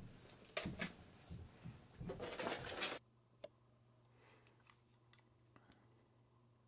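Plastic-packaged AA batteries being handled, a run of clicks and crinkling rustles, densest just before it cuts off suddenly about three seconds in. After that only a faint low hum remains, with a few small ticks.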